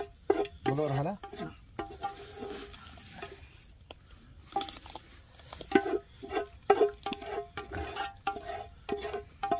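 Metal utensils clinking and scraping against steel dishes, several irregular knocks a second, each ringing briefly at the same pitch.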